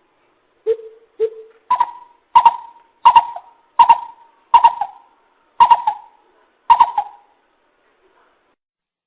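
Greater coucal giving its hooting call: two low hoots about a second in, then a run of seven higher, louder hoots, each with a sharp start, spaced a little under a second apart.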